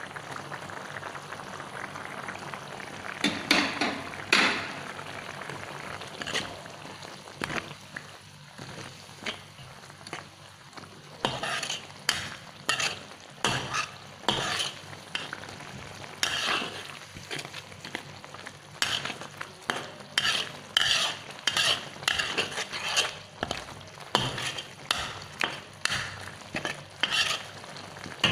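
A metal spatula stirring and scraping jengkol and chili paste around a pan, over the steady sizzle of the simmering sambal. There are two strokes a few seconds in, then a run of repeated strokes, about one or two a second, from the middle on.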